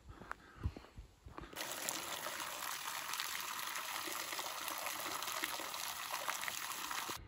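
Water from a pipe spring running out of the pipe and splashing into a shallow pool: a steady splashing that starts about a second and a half in and cuts off suddenly near the end. A couple of soft thumps come before it.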